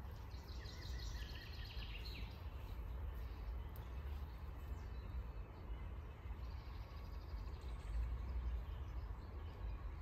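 Outdoor ambience of a low, uneven wind rumble on the microphone, with a small bird singing a short trilled phrase about a second in and a fainter phrase near the end.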